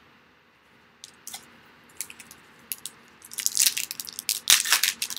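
Foil wrapper of a Topps Chrome baseball card pack being crinkled and torn open, after a few light clicks of cards being handled; the crinkling starts about three seconds in and thickens toward the end.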